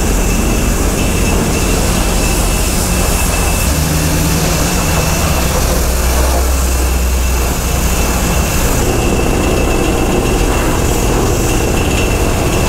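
Car wash high-pressure wand spraying water into a pickup's engine bay to blast off dirt and debris: a loud, steady hiss of spray over a low drone, with a thin steady whine running through most of it.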